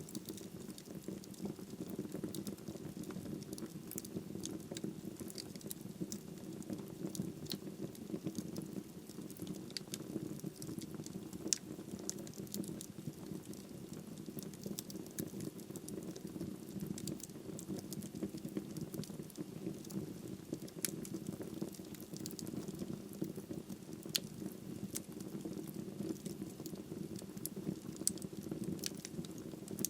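Wood fire burning in a fireplace: a steady low rush of flames with frequent small, sharp crackles and pops scattered throughout.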